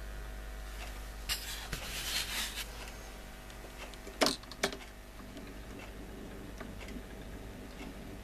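Vintage record player's tonearm being handled by hand over a spinning LP: rustling and small knocks, then two sharp clicks about four seconds in as the stylus is set down on the record. A steady low mains hum runs underneath.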